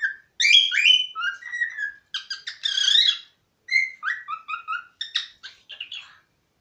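A cockatiel whistling and chirping in a quick string of short notes, many sliding down in pitch, with a harsher, raspier stretch about two and a half seconds in.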